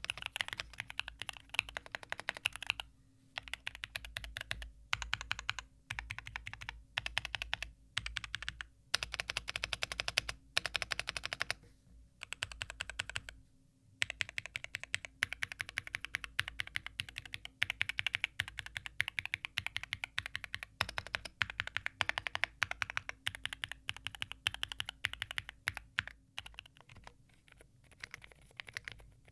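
Fast typing on a Wind Studio Sin65, an aluminium-cased gasket-mount mechanical keyboard: dense runs of keystroke clacks broken by brief pauses every few seconds.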